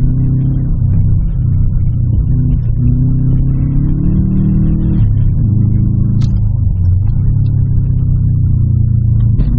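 Car engine heard from inside the cabin, revving as the car drives. Its pitch climbs for a couple of seconds, drops sharply about five seconds in, then holds steady. A brief click is heard about six seconds in.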